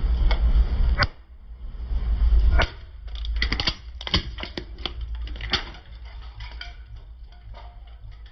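A car's low engine and tyre rumble, then a quick run of sharp cracks and snaps from about two and a half seconds in to near six seconds as the tyre crushes toys under it.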